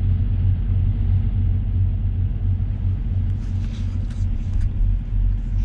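Semi truck's diesel engine running, a steady low rumble heard inside the cab.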